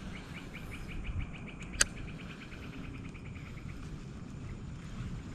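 An insect, cricket-like, chirping in a fast, even pulse of about ten chirps a second that fades out a little past halfway. A single sharp click about two seconds in is the loudest sound, over a low rumble.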